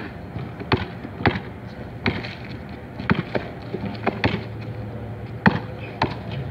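Basketball bouncing hard on pavement as it is dribbled: a string of sharp bounces at an uneven pace, about one to two a second.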